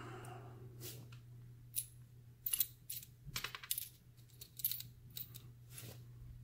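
Small metal parts of a brass euro cylinder lock clicking and clinking as they are handled and fitted by hand: about a dozen light, sharp ticks at uneven intervals, over a faint steady hum.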